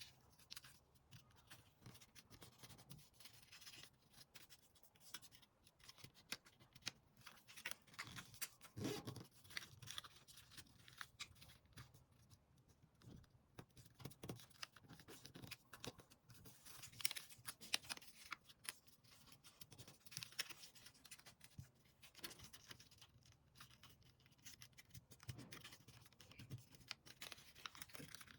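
Square sheet of origami paper being handled and folded by hand: faint, irregular crisp rustles and crackles.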